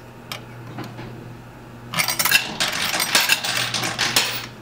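Quarters clinking and clattering in an arcade coin pusher: a few single clicks, then from about two seconds in a dense run of metallic clinks lasting a couple of seconds, over a low steady hum.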